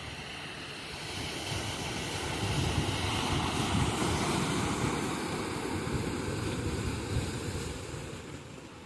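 Sea waves breaking on the shore: one surge of surf swells to its loudest about three to four seconds in, then ebbs away toward the end.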